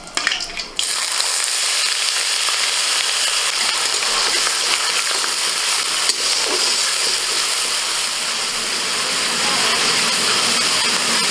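Chopped onions dropped into hot mustard oil in a kadai, starting to sizzle suddenly about a second in and then frying with a steady hiss while a spatula stirs them.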